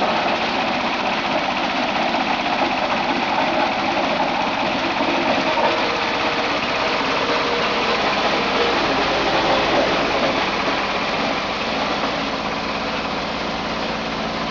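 A grass chopper and wood shredder machine running steadily, its engine and cutter making a continuous loud machine drone.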